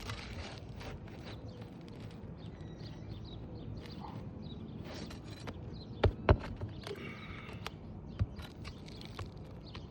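Handwork on roof shingles: scattered scrapes and light knocks, with two sharp knocks in quick succession about six seconds in and one more about two seconds later.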